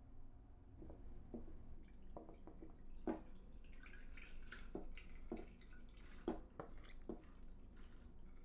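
Wet, freshly rinsed mixed grains (pearl barley with black and red rice) sliding out of a stainless steel bowl and dropping into a rice cooker's inner pot. Scattered small wet impacts, with two louder ones about three and six seconds in.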